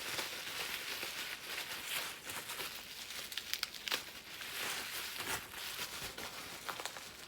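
Plastic packaging crinkling and rustling as blind packets are handled, with many small crackles.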